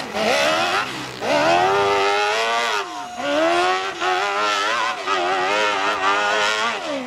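Hill-climb motorcycle engine revving hard as it climbs a steep dirt slope. Its pitch repeatedly rises and falls as the throttle is worked, dipping briefly about one second and three seconds in.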